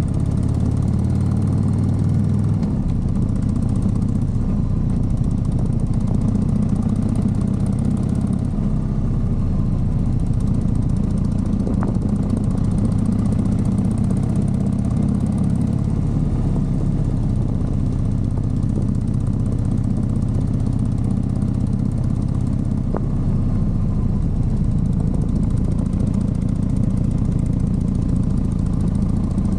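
Motorcycle engine running at a steady pitch, loud and even throughout.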